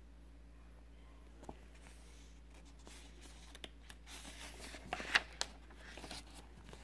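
A page of a paperback picture book turned by hand: paper rustling and crinkling with a few sharp clicks, starting about two and a half seconds in and loudest near the end.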